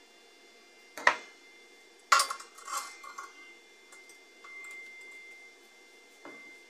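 Steel workshop parts being handled: a sharp metal click about a second in, then a louder knock with a short clinking rattle as a small square steel piece with a bolt and nut is set down on a steel tube. A faint steady high tone comes in about halfway.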